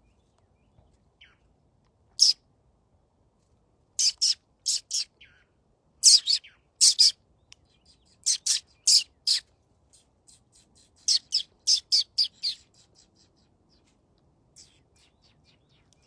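Florida scrub-jay calling: a string of short, sharp high notes, mostly in quick pairs and triplets, starting about two seconds in and thinning to a few faint notes near the end.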